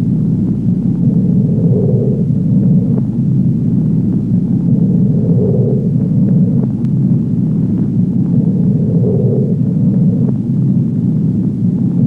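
A steady low rumbling drone, with a softer swell in it returning about every three and a half seconds and a few faint clicks.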